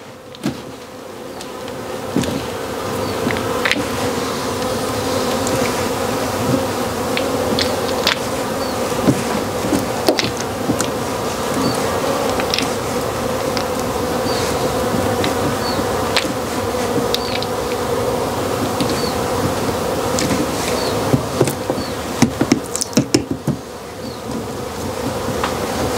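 Honeybees buzzing close around in a steady hum, with scattered light clicks and scrapes as the wax cappings are taken off a honeycomb frame. The clicks come more thickly near the end.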